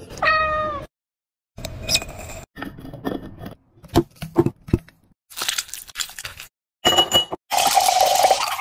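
A cat gives one short meow, then glass clinks and knocks follow as a drink is put together. Near the end, Sprite soda is poured from a bottle over ice into a glass, a steady fizzing hiss.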